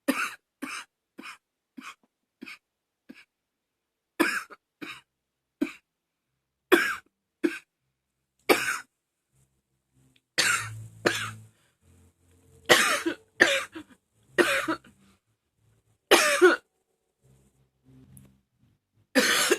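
A woman coughing over and over in a persistent fit: a quick run of about six coughs that fade away, then clusters of two to four coughs with short pauses between them.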